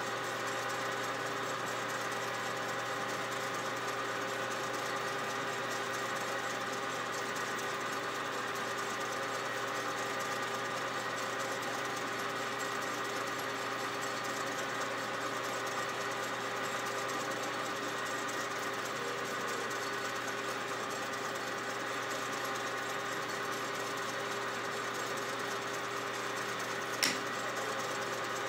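Metal lathe running steadily with its chuck turning, milling a 1/4-inch keyway into a 1-inch shaft clamped on a tool-post jig. It is a constant hum with several steady pitched tones, with a single sharp click near the end.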